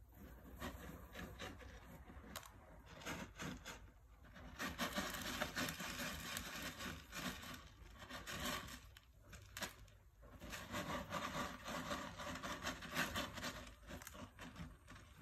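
Kitten scratching and raking cat litter in a litter box to cover its waste: rapid gritty scraping strokes in spells. A long, louder spell starts about four and a half seconds in, pauses briefly around nine seconds, then picks up again until near the end.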